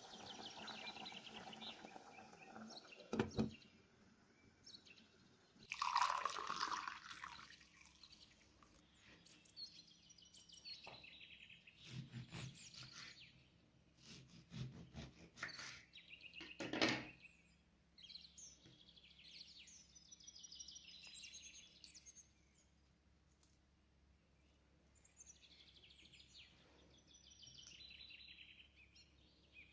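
Scattered knocks and handling noises from food preparation, the loudest about 3, 6, 12, 15 and 17 seconds in, then birds chirping in the background in the second half.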